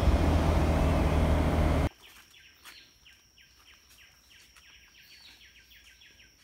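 Wind and road rush from a moving vehicle, cut off abruptly about two seconds in. Then quiet tropical jungle: a bird gives a fast run of short falling chirps, about five a second, over a steady high thin whine.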